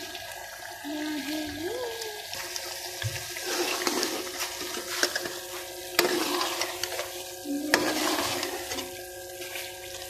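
Pot of potato and tomato curry sizzling as freshly added vegetables are stirred in with a metal spoon, a steady watery hiss with two sharp clinks of the spoon on the pot.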